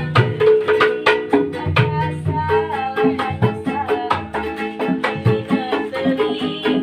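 Street musicians playing: quick, regular percussion strokes under a held melody line.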